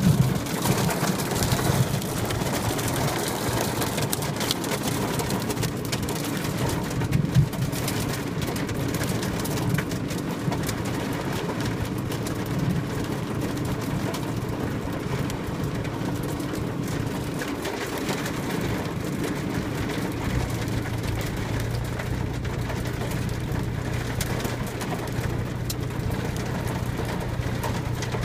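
Hail and rain pelting the roof and windows of a car, heard from inside the cabin as a dense, steady patter of small hits. A steady low hum comes in about twenty seconds in.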